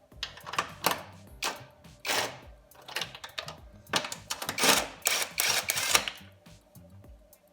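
Background music with repeated clicks, scraping and short hissing bursts of hand work on a motorcycle engine, busiest in the middle.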